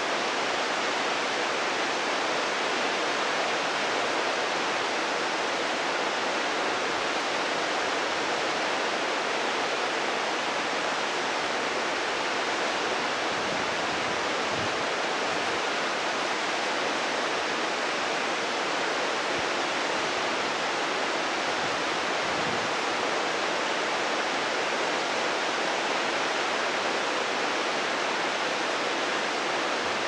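Mountain stream running: a steady, even rush of water.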